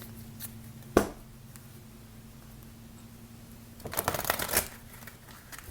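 A deck of oracle cards being shuffled by hand: one sharp tap about a second in, then a brief flurry of rapid card flicks around four seconds, over a faint steady low hum.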